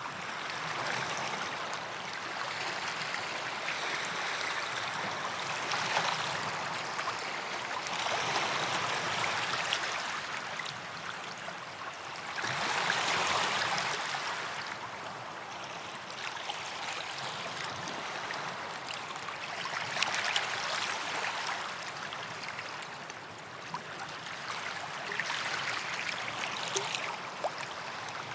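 Sea waves washing onto a beach: a steady wash of surf that swells and eases every few seconds.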